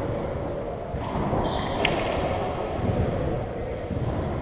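Sneakers squeaking briefly on a hardwood racquetball court floor about a second and a half in, with a single sharp tap just before two seconds, over the steady hum of the court's hall.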